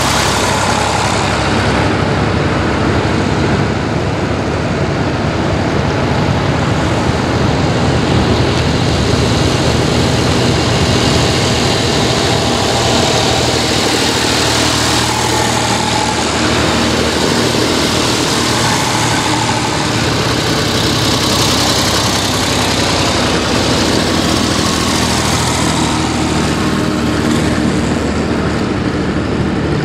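Vintage Massey Ferguson tractors' diesel engines running as the tractors drive past one after another, a steady low engine drone throughout.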